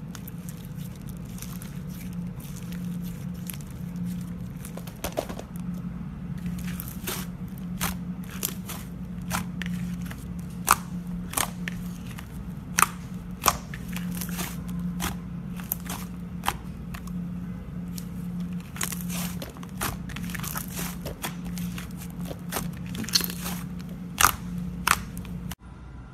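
Clay (butter) slime being mixed and squeezed by hand, giving irregular sticky crackles and sharp pops over a steady low hum.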